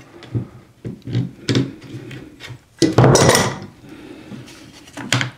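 Metal bar clamps handled on wooden boards: light knocks and clinks, with a louder clatter about three seconds in.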